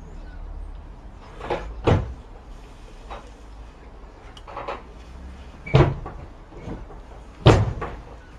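A few sharp knocks, the loudest three about two, six and seven and a half seconds in.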